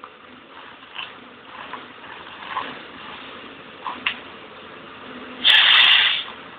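Ponsse harvester with a 650 debarking head working acacia logs: a steady machine noise with scattered short knocks and cracks. A loud hissing burst lasts under a second, about five and a half seconds in.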